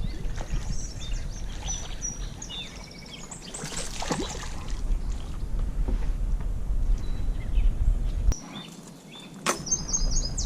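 Small birds chirping and calling over a low rumble of wind and handling noise, with a brief rushing noise about four seconds in and a sharp click and a short burst near the end.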